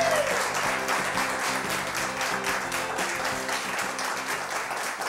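Theme music with plucked string notes, mixed with applause.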